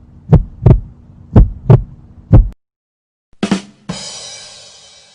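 Heartbeat sound effect: low double beats, about one pair a second, over a steady hum, stopping about halfway through. After a short pause there is a brief hit, then a bright ringing tone that fades away.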